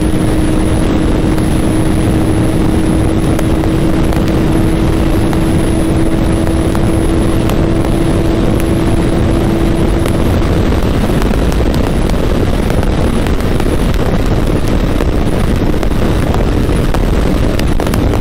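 Motorcycle cruising at highway speed: heavy wind rushing over the microphone over the engine's steady drone and tyre noise. A steady hum under it fades out about ten seconds in and comes back near the end.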